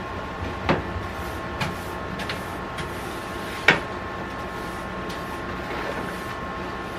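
A few sharp knocks and clicks, the loudest a little past the middle, over a steady hum.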